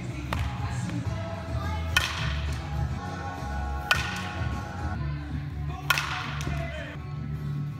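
Softball bat striking tossed softballs: three sharp cracks about two seconds apart, over background music.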